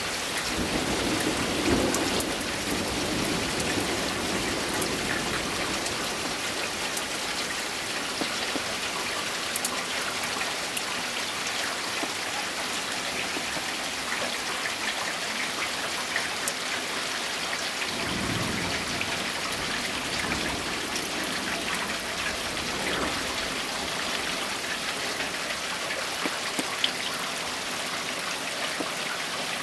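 Steady heavy rain falling, with low rumbles of thunder swelling up twice, about a second in and again a little past the middle.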